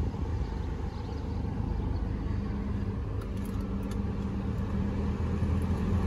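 Nissan Quest minivan engine idling steadily with the AC switched on, with a steady low hum joining about two seconds in. The AC compressor clutch is not engaging, which the owner puts down to a faulty relay.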